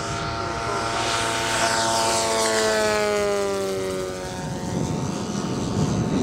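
Large-scale radio-controlled propeller warbird making a fast low pass: the engine and propeller drone drops in pitch as it goes by. A rougher rushing noise follows near the end.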